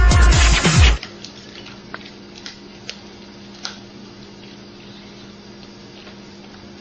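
Electronic dance music with a heavy beat cuts off suddenly about a second in. Then a quiet room with a steady low hum and a few faint clicks and small wet squishes of a kitten eating from a food bowl.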